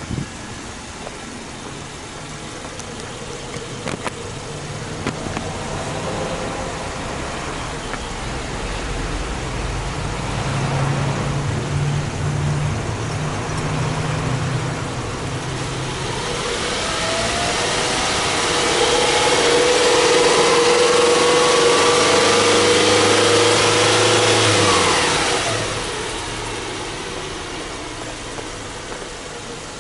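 Subaru Legacy Outback 2.5i's flat-four boxer engine idling, then revved with no load: a moderate rise in revs about a third of the way in, then a long steady climb in pitch to a held high rev, dropping back to idle about three-quarters of the way through.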